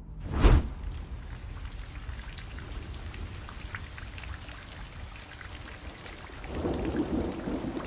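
Rain falling steadily, with scattered drop ticks, and a low rumble of thunder that swells near the end. A short burst of noise comes about half a second in.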